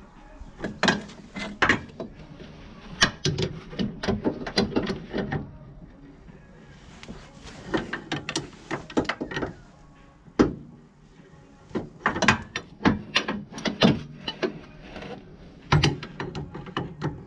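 A wrench clicking in bursts of quick metallic clicks as the inner track rod end is tightened onto the steering rack.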